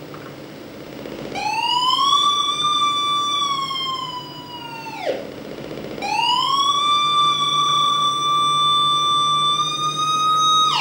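Electronic synthesized tone from a live laptop (Max/Ableton) sound performance: two long, siren-like held notes. Each slides up, holds near one pitch for a few seconds, then dives steeply down, the second dive coming at the very end. A steady low hum runs underneath.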